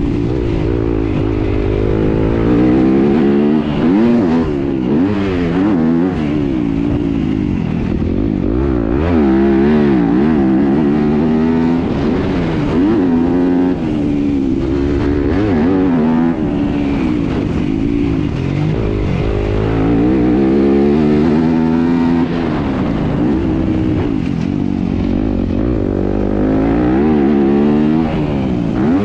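Motocross bike engine revving up and down as the rider opens and closes the throttle through corners and straights, heard from the rider's helmet camera.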